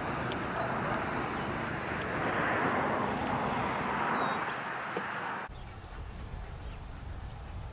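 Passenger carriages of a steam-hauled train rolling past on the rails, a steady rush of wheels on track that swells briefly in the middle. It cuts off abruptly about five and a half seconds in, leaving a low rumble.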